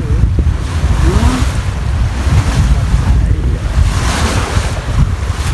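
Strong wind buffeting the microphone at sea, over the rush of choppy waves splashing around the boat.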